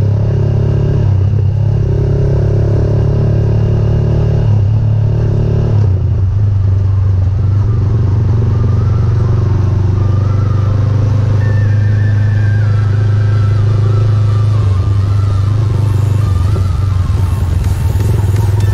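GPX Legend Gentleman 200 motorcycle's engine running steadily at low speed in slow traffic, a constant low drone heard close up from the bike.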